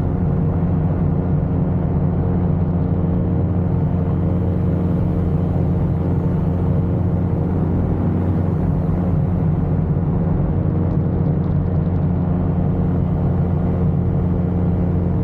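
Ultralight aircraft engine running steadily in flight: a constant low drone that holds one pitch throughout.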